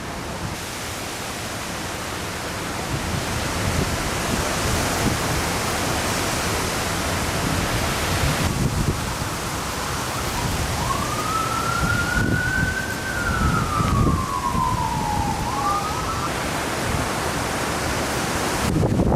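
Strong wind rushing across the microphone in gusts. Past the middle a siren wails once, rising and then slowly falling in pitch before starting to rise again.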